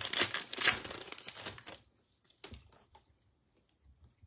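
A trading-card pack wrapper crinkling and tearing as it is opened. It stops after about two seconds, followed by a single faint tap.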